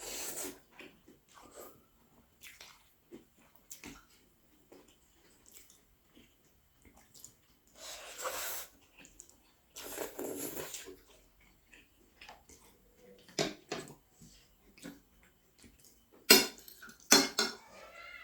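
Close-up eating sounds: chewing with short wet clicks, two longer slurps, and a few sharp utensil knocks against a bowl near the end.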